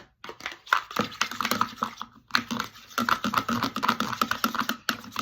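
Slime mixture with shaving cream being stirred in a bowl: a dense run of rapid, sticky clicks.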